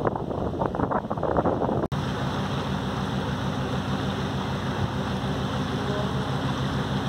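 Wind buffeting the microphone on the bow of the cruise ship Skorpios II for about two seconds. Then, after an abrupt cut, the ship's steady low engine drone with water rushing along the hull.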